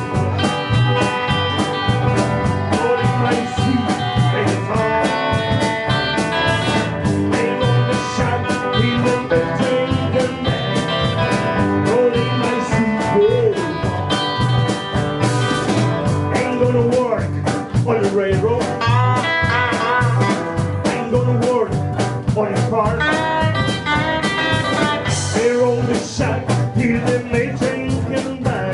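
Live band playing an instrumental break in a country song: an electric guitar lead with bent notes over electric bass and a drum kit keeping a steady beat.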